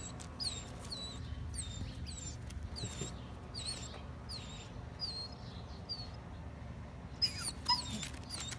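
A bird chirping over and over, one short high chirp about twice a second, over a steady low hum. A couple of sharper sounds come near the end.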